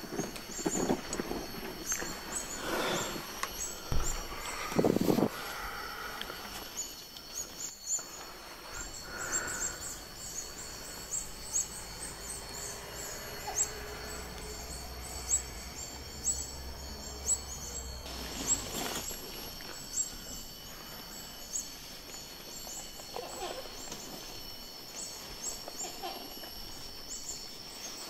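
Outdoor natural ambience: steady high-pitched chirping and a constant high hiss run through it, with a few louder short noises rising out of it now and then.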